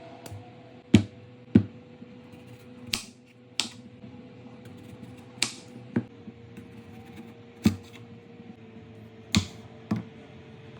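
Sharp knocks or clicks, mostly in pairs about half a second apart and roughly every two seconds, some followed by a brief hiss, over a faint steady hum.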